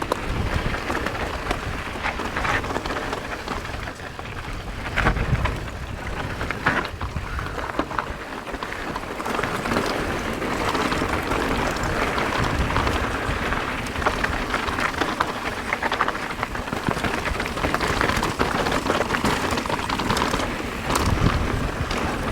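Mountain bike riding a rough trail: tyres crunching over dirt and rock, with frequent rattles and knocks from the bike over bumps. Wind buffets the microphone throughout.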